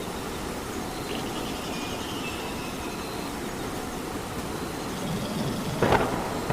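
Steady rain falling as a continuous hiss, with one sharp tap near the end.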